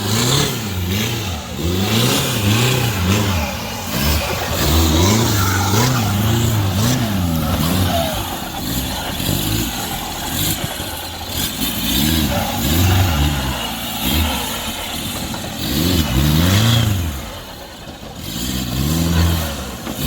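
Off-road 4x4 vehicle's engine revving in repeated bursts, its pitch rising and falling every second or two.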